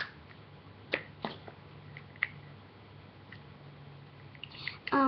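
Small plastic clicks and taps from Squinkies capsule balls and toys being handled, four or five separate clicks in the first half. Right at the end, a short, louder vocal sound.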